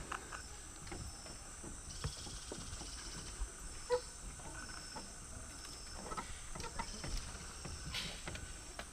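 Irregular footsteps and knocks on the deck of a rope bridge in the rainforest canopy, with a short creak about four seconds in. Rainforest insects buzz steadily and high throughout.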